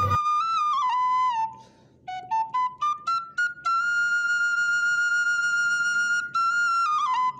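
Background music: a solo flute melody sliding between notes, a brief pause, a run of short notes, then one long held note through the middle before the tune moves on again near the end.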